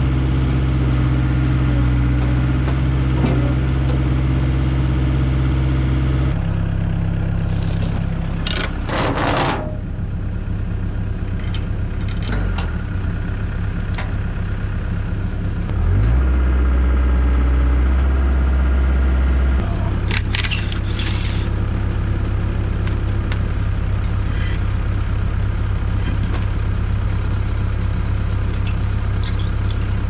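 An excavator engine runs steadily at first, and an engine drone continues throughout, changing pitch a few times. A cordless impact wrench rattles in short bursts about eight to ten seconds in and again about twenty seconds in, spinning lug nuts off a dually truck's rear wheel.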